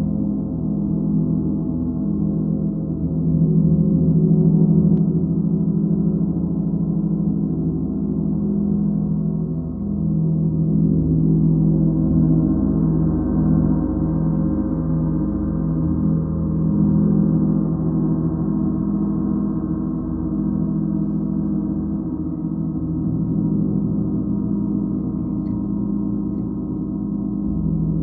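A 90 cm (36-inch) Cosmo gong sounding in a sustained, droning wash of many overlapping low tones. The wash swells louder around four seconds in and again around thirteen seconds, then ebbs, without ever dying away.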